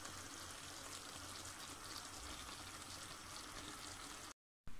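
Faint, steady bubbling hiss of stir-fry sauce simmering in the pan. It cuts off suddenly about four seconds in.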